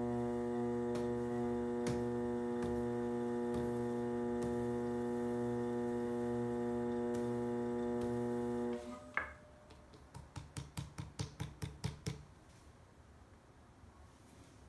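Electric potter's wheel motor humming steadily, then switching off about nine seconds in. After a click, a quick run of about a dozen light taps follows over two seconds.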